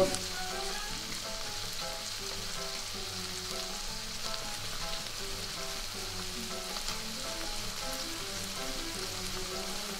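Chicken pieces frying in a stainless steel pan, giving a steady sizzle, with soft background music over it.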